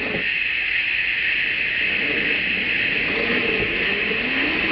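Brushed electric motor and drivetrain of an Axial SCX10 II RC crawler whining, rising and falling in pitch with the throttle as it crawls over loose rocks, mostly in the second half. A steady high hiss runs behind it.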